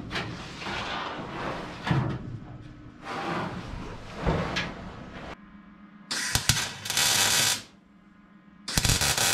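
Clatter and a few knocks of work on the bus body, then two short bursts of MIG welding crackle, about a second and a half and a second long, as bracing struts are welded in.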